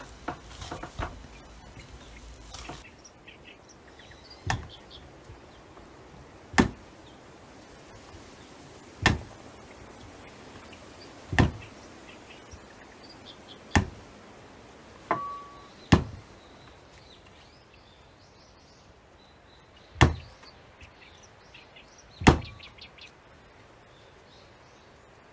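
Croissant dough being kneaded by hand on a wooden cutting board: a dull knock about every two seconds as the dough is pushed down onto the board, starting a few seconds in. Before the knocks there is softer squishing as the dough is worked in a glass bowl.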